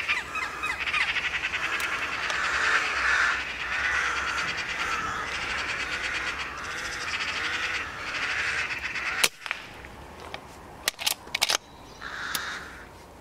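Eurasian magpie giving its harsh, fast rattling chatter call over and over, the alarm chatter of a riled-up bird. About nine seconds in the chatter stops with a single sharp crack, followed by a few short clicks and one brief call near the end.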